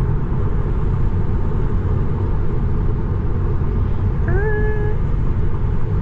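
Steady tyre and wind noise inside a Tesla electric car's cabin cruising at highway speed, an even low rumble. About four seconds in, a short pitched tone rises and then holds for about half a second.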